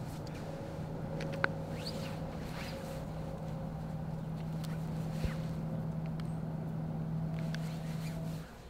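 A steady low hum with a fainter higher tone over it, scattered faint chirps and a few sharp clicks; the hum cuts off suddenly near the end.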